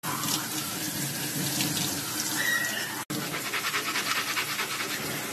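Kitchen tap water running and splashing over scallops and clams in a metal mesh strainer in a stainless steel sink, with shells rubbing and clicking together as they are scrubbed by hand. The sound drops out for an instant about three seconds in.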